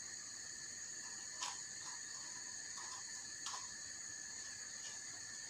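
Small kitchen knife cutting the core out of a sweet pepper: a few short, crisp cuts, the clearest about a second and a half in and again about two seconds later. Under them runs a faint, steady high-pitched whine.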